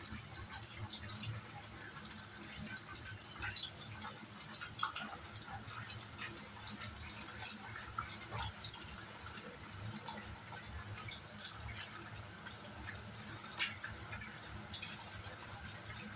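Sliced potatoes sizzling in hot oil in a wok as they are tipped in from a plastic bowl: a steady hiss full of small crackles, with a few louder sharp pops.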